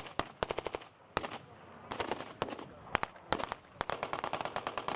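Small-arms blank fire: scattered single shots and rapid bursts of several cracks in a row, dense through the second half.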